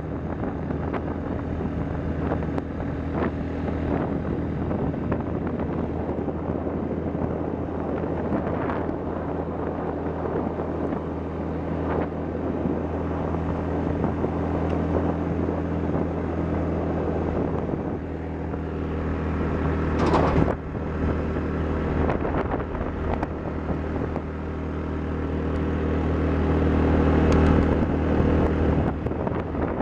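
ATV engine running steadily while riding a gravel road, with wind buffeting the microphone. The engine gets louder toward the end.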